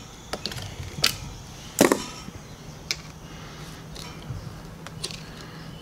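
Pliers and a screwdriver clicking and scraping against the cut, corroded brass trim sleeve of an old Kohler Nidecken shower valve clamped in a vise, as the sleeve is pried and peeled off. About six sharp metal clicks, the loudest a little under two seconds in.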